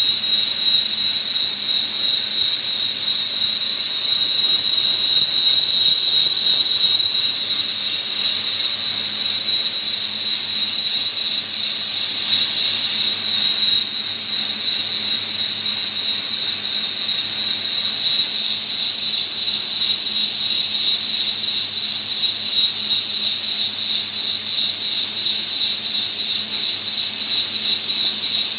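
Lathe running through a turning cut, with a steady high-pitched squeal over a low hum; it gets slightly quieter about seven seconds in.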